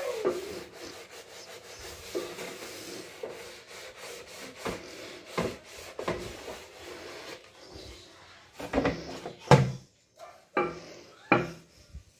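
Scrubbing sponge rubbing over a soapy bathroom surface in a scratchy steady run, with several sharp knocks in the second half.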